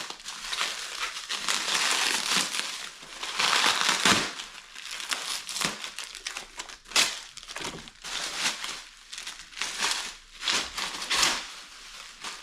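Packaging being pulled off and handled during an unboxing: irregular crinkling and rustling of wrapping, heaviest a few seconds in, then a run of separate short crackles.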